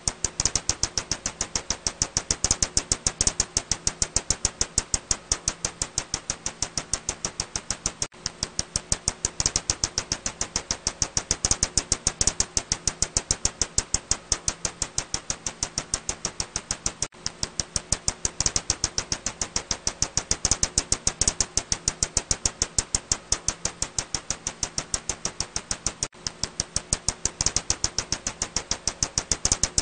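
Ussuri bat echolocation calls, heard as a rapid, steady train of sharp clicks, several a second, with a brief break about every nine seconds.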